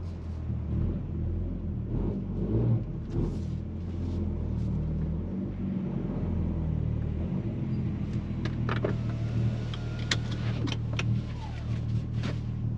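B58 turbocharged inline-six of a manual A90 Toyota Supra with an AWE Touring Edition exhaust, driving: the engine note rises and falls through the first half, then settles to a steady low drone. Several sharp clicks and ticks come in the second half.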